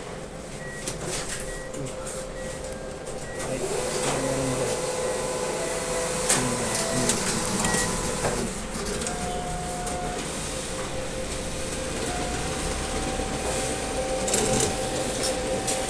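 Bank cash deposit machine running its mechanism, a steady whirring with clicks, and a run of short high electronic beeps in the first few seconds.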